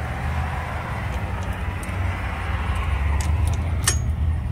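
Diesel truck engine idling with a steady low rumble, over which a few light metallic clicks of a wrench on the battery-box hardware are heard, the sharpest about four seconds in.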